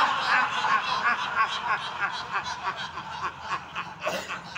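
A group of people laughing heartily together, a quick repeated ha-ha-ha that slowly gets quieter: the long laughs of a laughter-yoga exercise.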